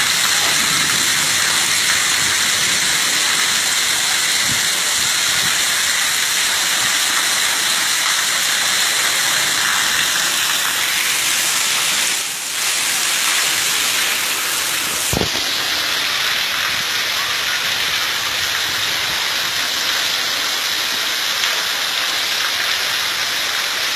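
Heavy rain falling steadily, a continuous loud hiss.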